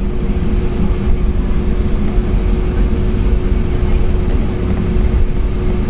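Boeing 757-200 jet engines running loud and steady, heard inside the passenger cabin: a deep rumble under a steady hum.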